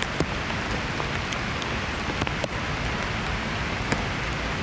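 Heavy rain falling steadily, with scattered sharp ticks of nearby drops.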